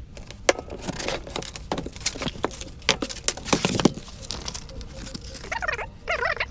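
Crinkling and rustling of a printed artwork sheet as it is handled and curled, with scattered sharp clicks and taps. Near the end comes a quick run of short squeaky chirps.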